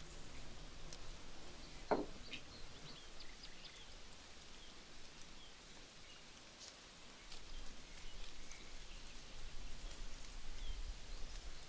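Faint outdoor background noise with a few short, high chirps scattered through it, and one sharp knock about two seconds in.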